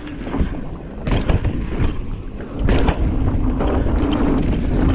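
Mountain bike (Specialized Stumpjumper Evo) descending a dirt trail: wind rushing over the microphone and the tyres rolling on dirt, with sharp knocks and rattles as the bike hits bumps. It gets louder and steadier just before halfway through as speed picks up.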